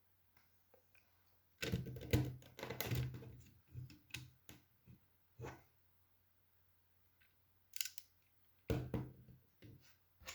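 Plastic Lego pieces clicking and clattering as they are handled and pressed together: a busy spell of clatter about a second and a half in, a few single clicks, then another short spell near the end, with quiet in between.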